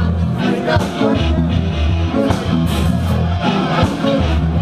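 Live rock band playing loudly, electric guitar over sustained bass notes and steady drum hits.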